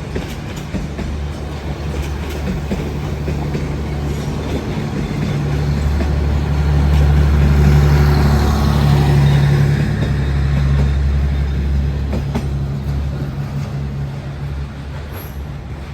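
Diesel-hauled train passing, the locomotive's low engine drone growing louder to a peak about halfway through, then fading away.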